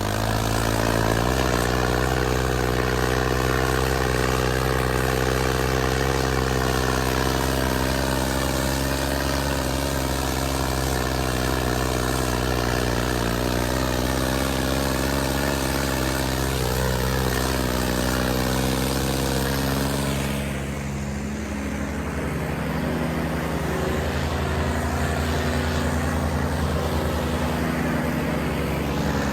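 Tractor diesel engines running hard under load in a tug-of-war pull, a steady engine drone that wavers slightly in pitch. About 20 s in, the note drops and settles into a lower, rougher running sound.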